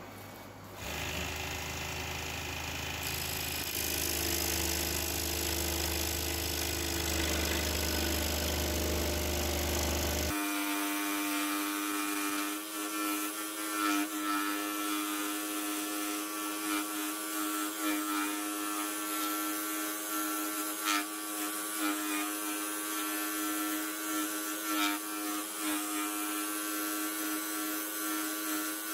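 Pégas 21-inch scroll saw switched on about a second in and running, its fine fretsaw blade cutting through a wooden tree slice. The running sound changes abruptly about ten seconds in to a steady hum, with occasional short clicks as the blade works the wood.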